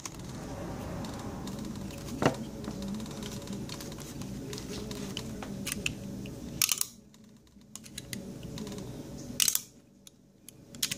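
Sharp clicks of a DeWalt folding utility knife being handled while its blade is worked in and out of the holder, about four in all, over a low background hum that drops away about seven seconds in.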